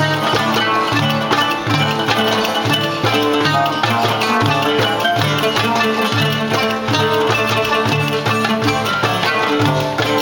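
Oud and qanun playing a Balkan-style karsilama tune in 9/8, a steady run of plucked notes.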